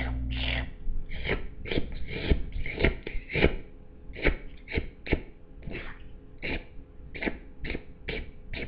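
Cat grooming itself, its rough tongue rasping over its fur in a quick series of licking strokes, about two a second. A steady low hum cuts off under a second in.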